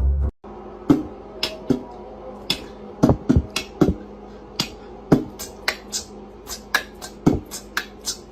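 A series of irregular sharp taps, about twenty over eight seconds, over a faint steady hum.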